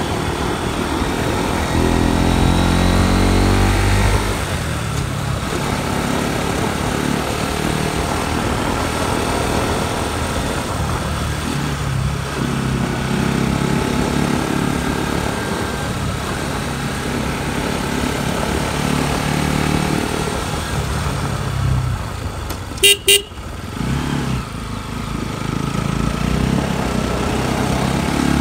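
Motorcycle engine running on the move, its pitch rising and falling with the throttle, with a strong rev about two seconds in. Two short horn beeps sound near the end.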